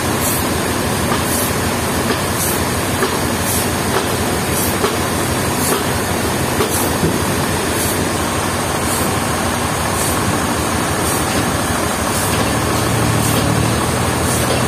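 Sawmill saw running steadily through a log, a loud even noise with faint regular ticks about one and a half times a second.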